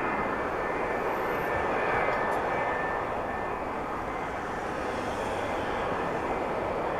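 Jet airliner engines running with a steady rush and a faint high whine.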